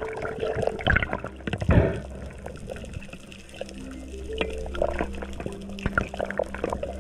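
Muffled underwater noise through a dive camera's housing: water movement, bubbles and scattered clicks, with a louder rush just under two seconds in. Soft background music with held notes runs underneath.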